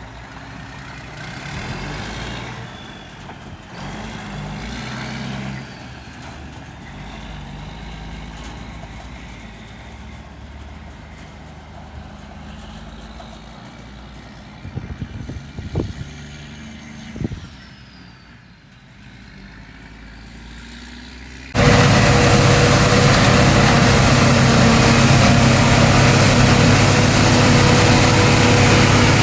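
Engines of corn-harvest machinery running at a moderate level, with a few short sharp clatters midway; about two-thirds of the way through, a much louder, steady engine drone cuts in suddenly, close to the microphone.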